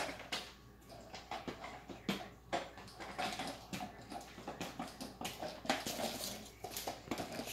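Wrapping paper and gift boxes rustling and crinkling in short, irregular crackles, with light knocks on a tile floor.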